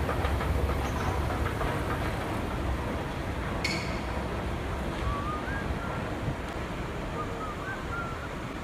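Escalator and indoor walkway ambience: a steady low rumble, heaviest in the first second, under a haze of noise, with a brief hiss-like click about three and a half seconds in.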